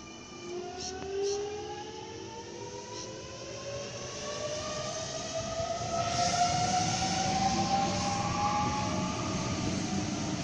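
Sydney Trains Millennium (M-set) electric train pulling away and accelerating, its traction motors giving a whine of several tones that climb steadily in pitch. Wheel and track noise grows louder as it gathers speed.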